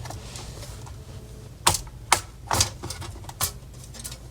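Plastic retaining clips of an HP EliteBook 850 G5's bottom cover snapping loose as the cover is pried off with an opening tool: five sharp clicks spread over about two seconds, starting about a second and a half in.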